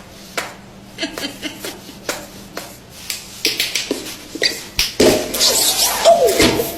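Mouth-made sound effects: a string of short clicks and pops, then louder vocal noises about five seconds in, with a pitched sound sliding downward near the end.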